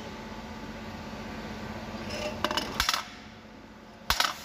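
Metallic clinks and knocks of a steel clutch pressure plate being handled by hand: a quick cluster of clicks about two and a half seconds in and one more knock near the end, over a steady low hum.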